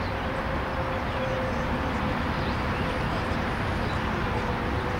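Steady outdoor background noise with faint distant voices and a faint steady hum.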